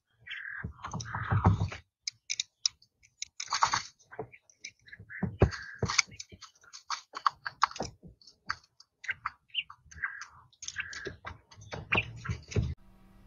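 Sound effects for an animated title card: a quick, busy run of clicks, pops and short chirping blips, with a few low thumps, cutting off abruptly near the end.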